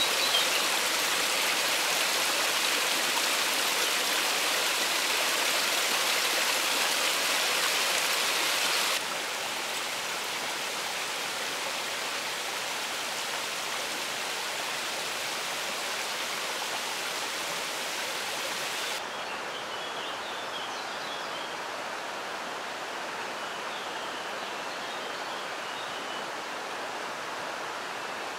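A small rocky stream cascading down over boulders: a steady rush of water that drops abruptly in level about a third of the way in and again about two-thirds in. Faint bird chirps come in over the water during the last third.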